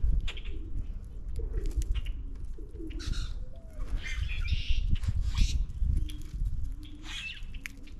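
Birds at a feeder: common grackles give harsh, squeaky calls several times, mixed with low cooing and low bumps.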